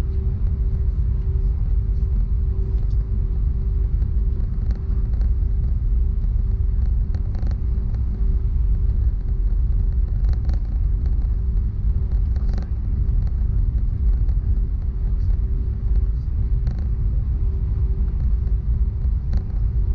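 Cabin noise of an Airbus A319 on the ground before takeoff: its IAE V2500 engines running at idle as a steady low rumble with a constant hum, and a few faint light clicks.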